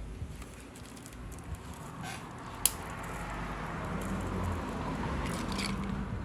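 Quiet indoor room tone: a steady low hum with scattered small clicks and soft rustling, and one sharp click about two and a half seconds in.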